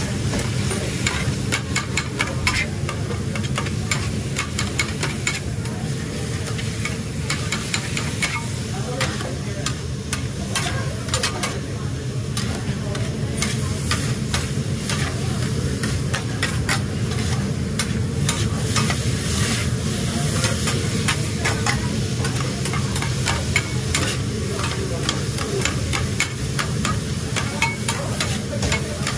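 Sliced steak, onions and peppers sizzling on a flat-top griddle while two metal spatulas chop and scrape rapidly against the steel plate, a fast, uneven run of clicks and scrapes over the sizzle and a steady low rumble.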